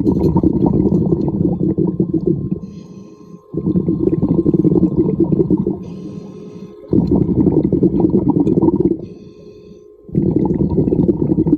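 Scuba diver breathing underwater through a regulator: bursts of bubbling exhaled air about every three and a half seconds, each lasting two to three seconds, with a faint high ringing from the regulator in the quieter gaps between them.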